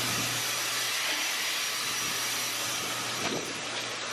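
Steady rushing machine noise with a constant low hum underneath, unchanging throughout.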